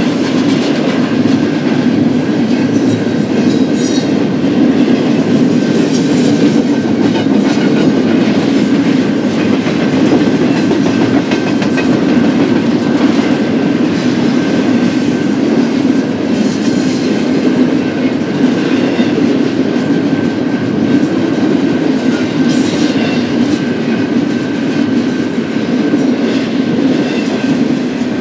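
BNSF intermodal freight train's cars rolling steadily past: a continuous rumble of steel wheels on rail with clickety-clack over the rail joints and a faint, steady high-pitched ring.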